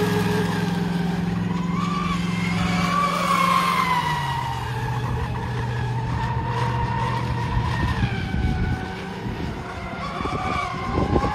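Fast-electric RC racing catamarans at speed: a high motor whine that wavers and rises and falls in pitch, over the hiss of spray from the hulls. A low steady hum sits underneath and drops in pitch about four seconds in.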